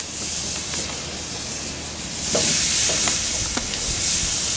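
Raw ground New York strip burger patties sizzling on a screaming-hot grill grate over a live fire. The sizzle grows louder about two seconds in as another patty goes down, with a few short ticks along the way.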